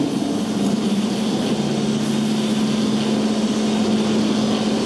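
Stage rain effect running: water falling in a steady hiss, over a steady low hum.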